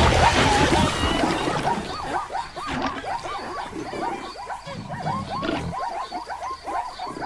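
Sound-effect animal calls starting suddenly and loudly: a dense chorus of short, repeated cries over a low rumble.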